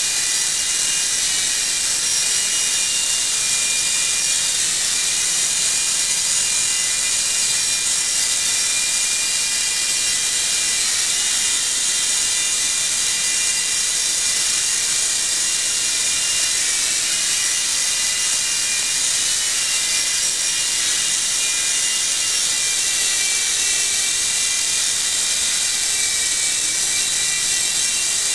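Infrared remote-control toy mini helicopter hovering: its small electric motors and rotors make a steady high-pitched whir, with a few whining tones that waver slightly now and then.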